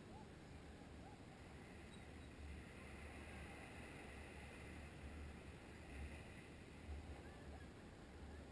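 Faint beach ambience: low wind rumble on the microphone swelling and fading, over a soft hiss of small waves washing on the shore.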